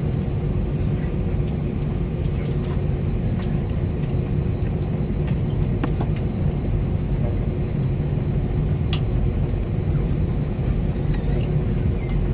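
Airbus A320 cabin noise: a steady low rumble with a constant hum, with a few light clicks.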